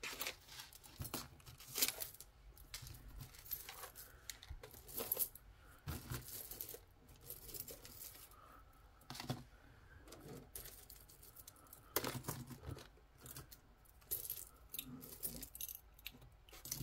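Costume jewelry (metal chains, strands of silver-tone beads and bangles) clinking and rattling as fingers sort through a tangled pile, in irregular light clicks with a few louder ones.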